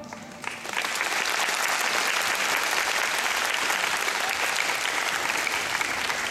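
Audience applauding, a dense even clapping that starts about half a second in and holds steady.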